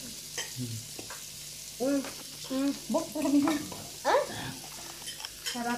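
Meat sizzling on a Korean barbecue grill: a steady frying hiss, with short snatches of voice over it.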